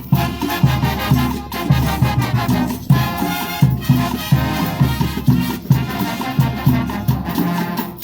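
Mexican banda music: brass and woodwinds playing over a bouncing tuba bass line with a steady beat.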